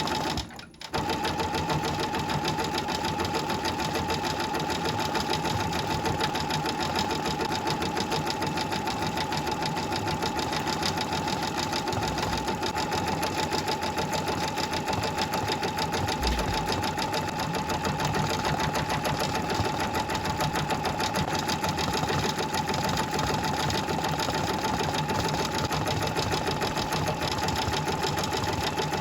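A machine stitching at speed, with a rapid even needle rhythm and a steady hum, running without a break apart from a brief dropout under a second in.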